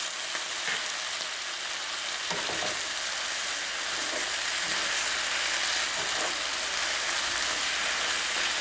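Sliced onions, carrots and peppers sizzling steadily in oil in a frying pan, stirred with a wooden spoon that scrapes and knocks against the pan now and then.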